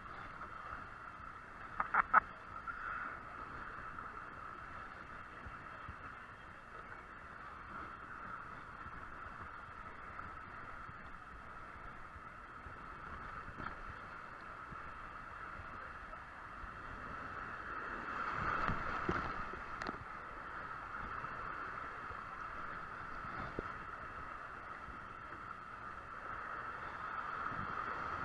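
Water rushing and splashing along a water-park tube slide, a steady muffled wash with a few sharp knocks about two seconds in and a louder surge about two-thirds of the way through.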